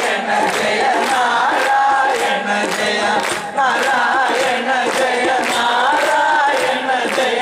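A group of male singers chanting Ottamthullal verses together in a repetitive, chant-like melody over a steady percussion beat.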